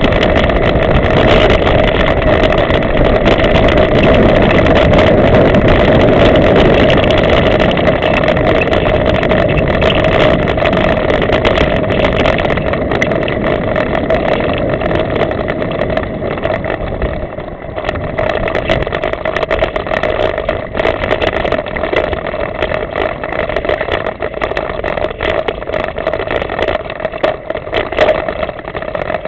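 Mountain bike riding a dirt forest trail, heard from a camera on the moving bike: steady wind and tyre rumble with frequent small rattles and knocks over bumps. It is loudest for the first dozen seconds or so, then drops somewhat.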